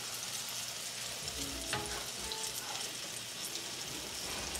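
Banana fritters sizzling in a frying pan on a gas stove: a steady hiss with scattered small crackles.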